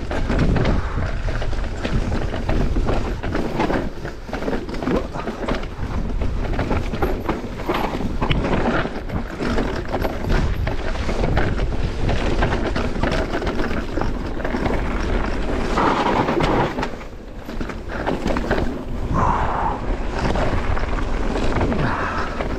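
Mountain bike descending a rough trail: a continuous rattle and clatter of tyres and bike over rocks and dirt. It eases briefly about seventeen seconds in.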